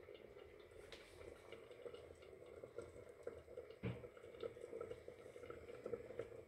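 Hot fat and juices faintly crackling and bubbling in a freshly roasted baking dish of bacon-wrapped chicken rolls, with one sharper knock about four seconds in.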